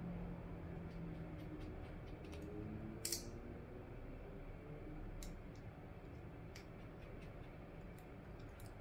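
Light, scattered clicks and ticks of a small precision screwdriver and tiny parts handled against an iPhone 6 replacement display assembly, with one sharper click about three seconds in.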